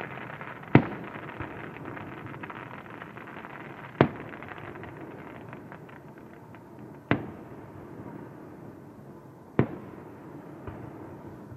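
Aerial fireworks shells bursting: four sharp bangs about three seconds apart, each with a short echoing tail. Under them is a dense crackling haze that dies away over the first half.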